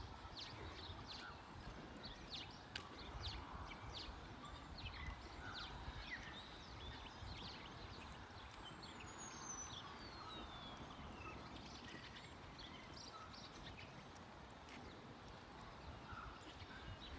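Footsteps of someone walking on an asphalt railway platform, with wind rumbling on the microphone and birds chirping. One whistle slides down in pitch about nine seconds in.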